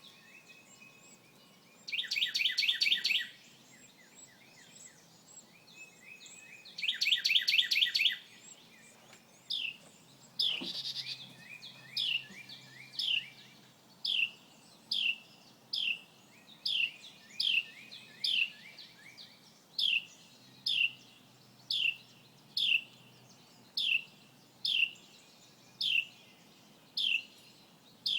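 A small songbird singing: two loud, rapid trills in the first third, then a long run of short, high notes, each falling in pitch, repeated about once a second.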